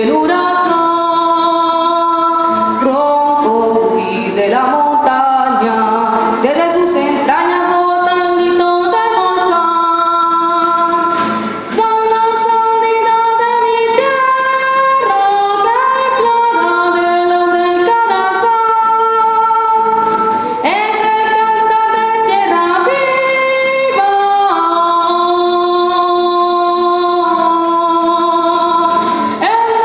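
A woman singing a slow melody with long held notes.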